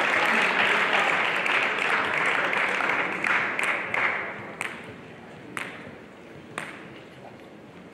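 Audience applause fading away over the first few seconds, then a few sharp single ticks about a second apart.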